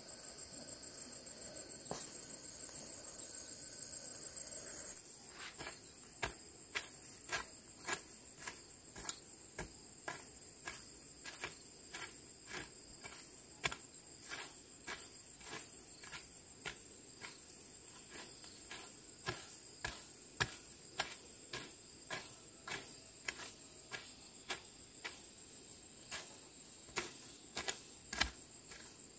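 A hoe chopping into dry soil in short regular strikes, about one to two a second, from about five seconds in. Under it, a steady high chirring of insects, louder for the first few seconds.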